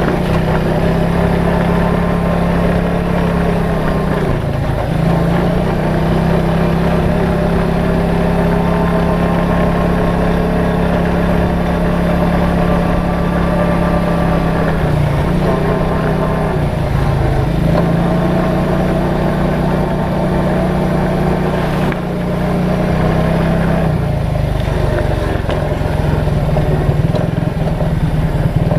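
ATV engine running steadily under throttle, its pitch dropping and climbing back three times as the throttle eases off and opens again.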